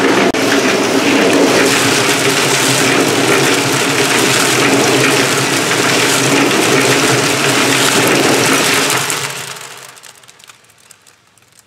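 Small electric cement mixer running, its drum churning a wet slurry over a steady motor hum. About nine seconds in it winds down and falls quiet.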